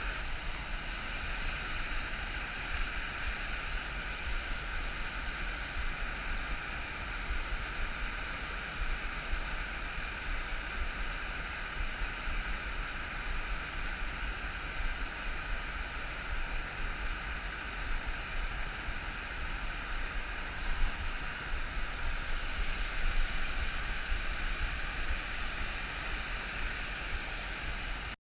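Steady rushing of a waterfall and river water, an even hiss and rumble with no breaks.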